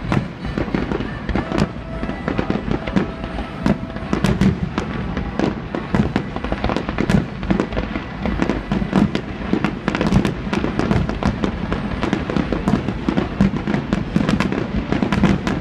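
Aerial fireworks display: a dense, continuous run of bangs and crackles from bursting shells, several a second.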